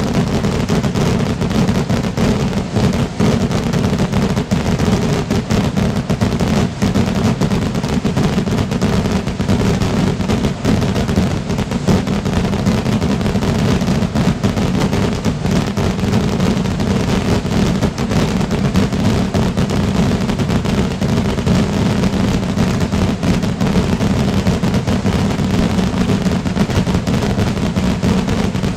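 A dense, unbroken barrage of sky rockets (voladores) bursting, the bangs following so closely that they merge into one continuous, steady din with no pause.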